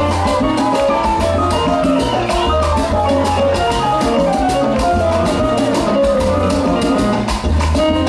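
Live salsa band playing: electric bass lines, piano or keyboard chords and percussion with a steady beat.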